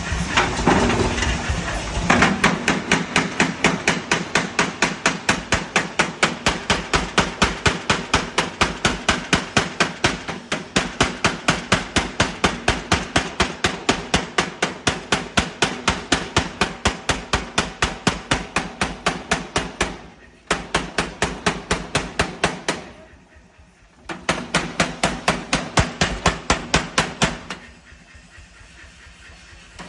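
40 kg pneumatic air forging hammer running, its ram striking in a fast, even rhythm of several blows a second over the steady hum of its motor. The blows stop briefly about twenty seconds in, again a few seconds later, and fade near the end.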